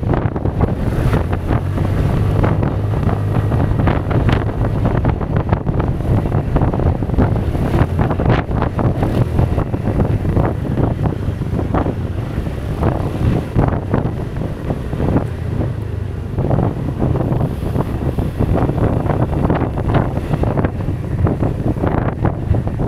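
Wind rushing and buffeting against the microphone on a moving scooter, over the steady drone of the Kymco Xtown 300i's single-cylinder engine.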